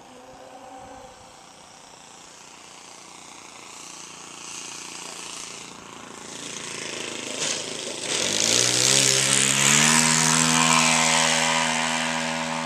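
Radio-controlled model biplane's engine and propeller droning, growing louder as the plane closes in on a low pass. The engine note rises about eight seconds in, then holds steady at its loudest.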